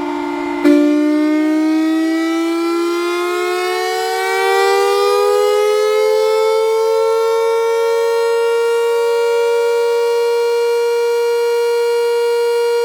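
Outdoor warning siren sounding during a test, one wailing tone with strong overtones. About a second in its loudness jumps suddenly, then its pitch rises slowly for several seconds and holds steady at the top.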